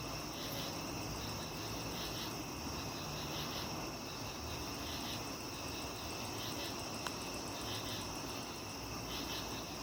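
Crickets chirping: repeated pulsed chirps over a steady high-pitched insect drone, with one brief click about seven seconds in.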